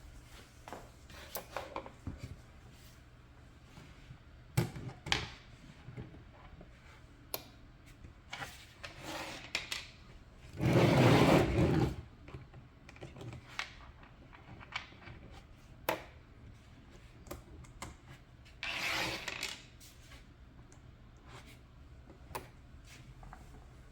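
Small plastic RC car parts and hand tools being handled on a work surface during disassembly: scattered clicks and knocks, with a louder noisy burst of about a second and a half just under halfway through and a shorter one about two thirds of the way in.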